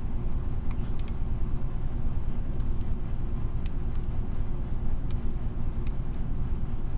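Steady low rumble of background noise, with a few faint sharp clicks of a lock pick working the pins of a pin-tumbler lock.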